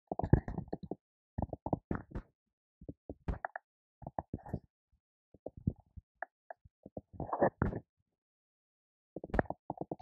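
Typing on a computer keyboard: quick runs of keystroke clicks with short pauses between them, and a longer pause about eight seconds in.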